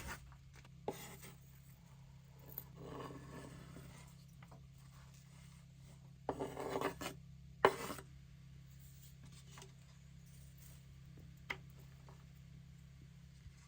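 Soft rubbing and scraping handling sounds, two of them louder at about six and a half and near eight seconds in, with a few light clicks, over a steady low hum.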